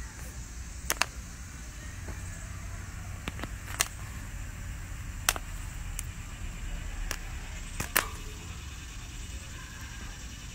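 Popcorn kernels popping on hot charcoal under a grill grate: about nine sharp pops at irregular intervals, some in quick pairs, over a steady low rumble.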